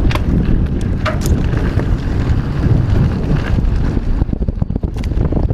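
Wind buffeting the camera microphone over the rumble of knobby mountain-bike tyres rolling fast down loose gravel singletrack, with a few sharp clicks and rattles from the Santa Cruz Megatower's frame and drivetrain.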